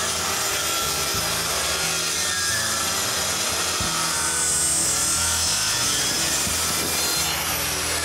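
Festool TS 75 EQ plunge-cut track saw running and cutting steadily through a thick laminated wood block along its guide rail.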